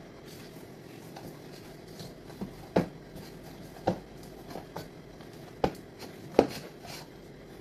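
A hand kneading and pressing stiff dough in an enamel bowl: soft rustling and patting, broken by four sharp knocks against the bowl, spaced about a second apart.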